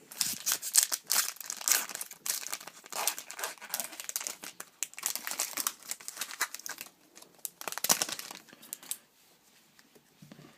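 Wrapper of an Upper Deck Artifacts hockey card pack crinkling and rustling as it is torn open and handled. The crackling stops about nine seconds in.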